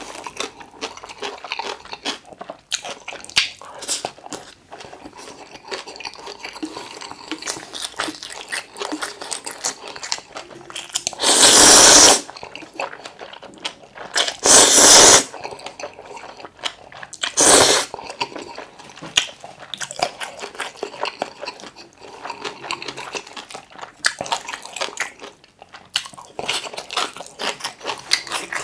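Close-miked eating: wet chewing and mouth clicks throughout, with three loud slurps of curry ramen noodles near the middle, the last one short.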